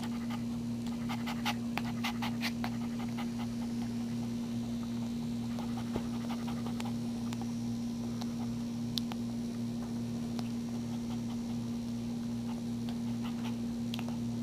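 A mother dog panting just after whelping while her newborn puppy nurses, with small clicks clustered a second or two in and a few later, over a steady low electrical hum.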